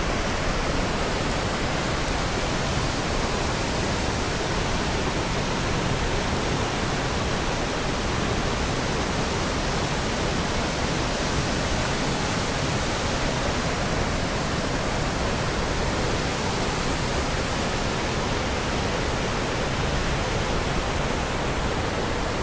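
Waterfall: water pouring and splashing in a steady, loud, unbroken rush.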